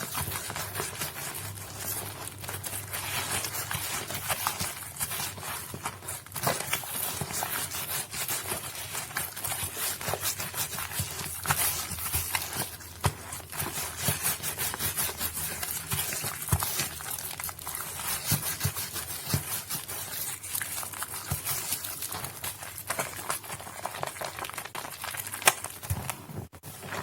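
Soaked Nuvo bar soap being squished and crushed by hand: a dense, irregular stream of wet crackles and clicks, with one sharper click near the end.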